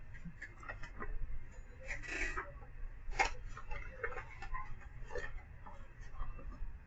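Irregular small clicks and knocks from items being handled at a repair bench, one sharper knock about three seconds in and a short rustle a little before it, over a low steady hum.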